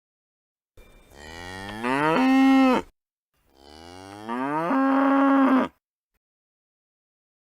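Cow mooing twice: two long calls, each rising in pitch and then holding a steady, louder tone before stopping sharply.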